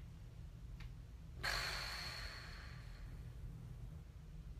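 A woman's breathy sigh about one and a half seconds in, fading out over a second or so, over a low steady background hum.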